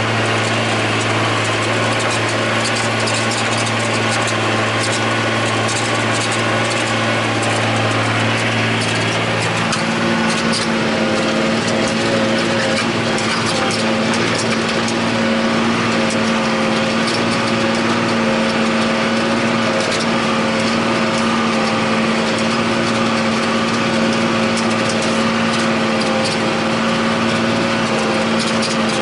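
John Deere 8100 tractor's six-cylinder diesel engine running steadily under load while pulling a disk ripper through the field, heard from inside the cab. About ten seconds in, the engine's hum shifts to a higher tone.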